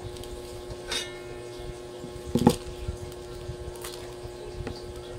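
Knocks and clicks from handling a new non-stick wok and its handle parts: a sharp knock about a second in, a louder one about two and a half seconds in, then a few lighter clicks, over a steady hum.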